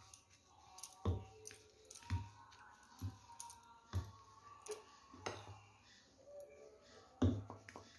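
Steel spoon stirring thick batter in a bowl, knocking against the bowl about once a second, with the loudest knock just after seven seconds. Faint background music underneath.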